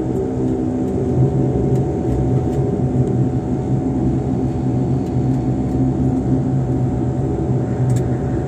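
Airliner engines heard from inside the passenger cabin, running at a steady hum with a constant low drone, as the plane rolls along the ground after landing. A few faint ticks sound over it.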